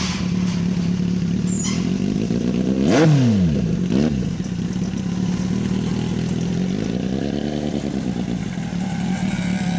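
Kawasaki Z800's inline-four engine through an SC-Project CRT aftermarket exhaust, idling steadily and then blipped. There is one sharp rev about three seconds in, a shorter blip a second later, and a gentle rise and fall in revs near the end.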